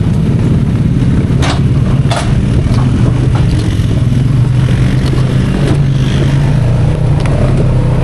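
ATV engine running steadily at riding speed, a constant drone with a couple of short sharp knocks early on from the machine rattling over the trail.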